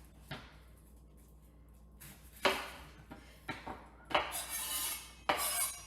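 Knife cutting onions and apples on a cutting board: a few separate sharp knocks, then two longer rasping cuts in the last two seconds.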